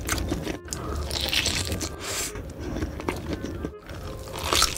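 Close-miked chewing and biting of a giant sausage coated in melted cheese, with the loudest bite near the end. The sound is broken by two brief drop-outs.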